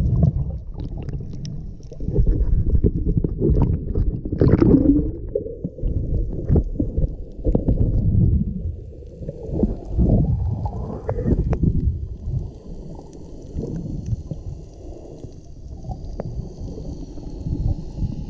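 Muffled underwater rumble of water moving around a hand-held action camera as a snorkeler swims, swelling and falling, with scattered knocks and a couple of short gurgles.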